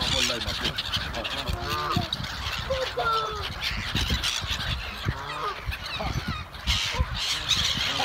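A flock of black-headed gulls and Canada geese calling over one another, many short harsh calls and honks overlapping without a pause.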